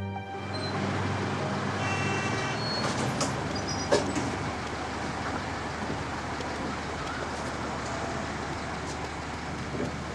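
Night city-street traffic noise around a city bus at a stop, with a brief high tone about two seconds in and a sharp click about four seconds in.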